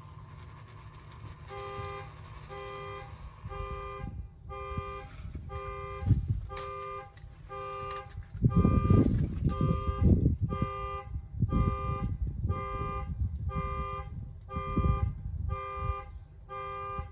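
Vehicle horn sounding in a steady pulse of short honks about once a second, like a car alarm, from a vehicle other than the van. Low rumbling thuds come and go underneath, loudest in the middle.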